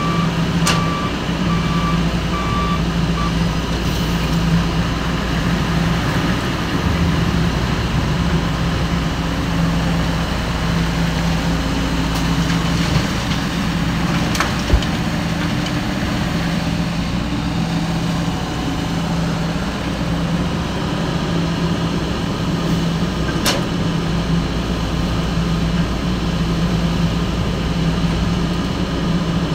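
Heavy construction equipment's diesel engine running steadily, with a reversing alarm beeping repeatedly over it until about three seconds in.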